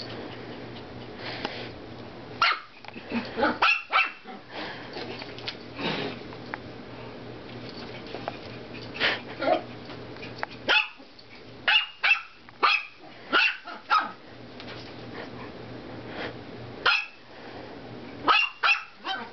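Five-month-old Chihuahua–Dachshund–Yorkie–Shih Tzu mix puppy yapping in play: quick, sharp barks in clusters, with quieter stretches of a few seconds between them.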